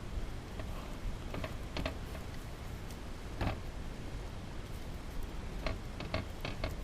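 Irregular sharp clicks and taps of a tool working lead battery plates in a melting pot, the strongest about halfway through and several close together near the end, over a low steady rumble.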